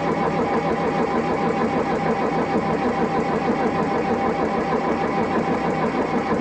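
Old Massey Ferguson 25 tractor engine turning over on its starter, cranking steadily without catching.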